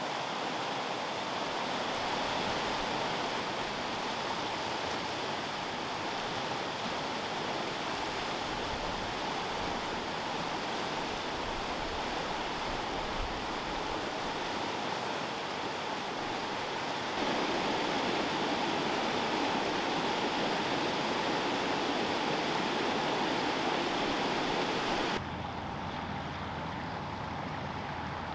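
River rapids rushing over boulders: a steady roar of water. It gets louder about two-thirds of the way through, then drops near the end to a duller, quieter flow.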